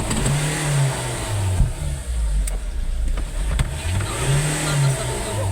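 2014 Ford Ranger's common-rail diesel engine running and being revved twice, its pitch rising and falling each time. It has just been brought back to life with new injectors and a new fuel pressure pump and fuel rail.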